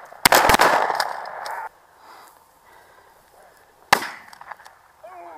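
12-gauge shotgun shots. One comes about a quarter second in and its echo rings on for over a second; a second, sharper shot follows about four seconds in.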